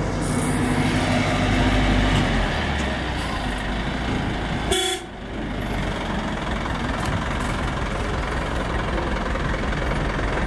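Street traffic: a heavy vehicle's engine running steadily for the first couple of seconds, a brief vehicle horn toot about five seconds in, then steady traffic noise.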